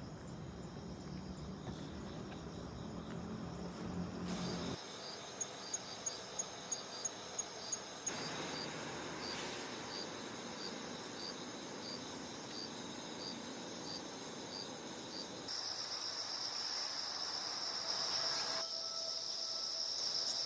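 Insects, crickets among them, chirping: steady high trills with a run of regular chirps at about three a second between roughly 5 and 8 seconds in, and a louder high trill joining at around 15 seconds.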